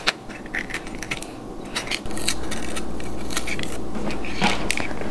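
Chef's knife tapping and scraping on a cutting board while sweet mini bell peppers are cut and seeded, a run of light clicks. A steady low hum comes in about two seconds in.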